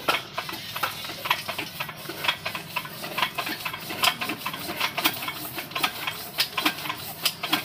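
A 12 hp single-cylinder stationary diesel engine being hand-cranked and catching, with a steady clatter of knocks, roughly three a second, over a low hum.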